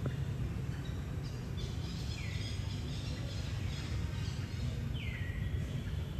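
Steady low outdoor rumble, with two high animal calls that each fall in pitch, about three seconds apart, and a few fainter chirps.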